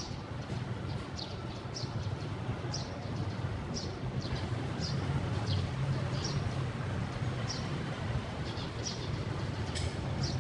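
Low steady rumble of a vehicle engine running, with a bird giving short, high chirps about once a second.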